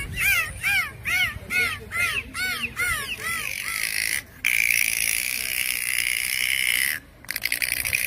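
Dolphin calls: a quick run of about seven short arched whistles, about two a second, then long steady whistles, and near the end a rapid train of clicks.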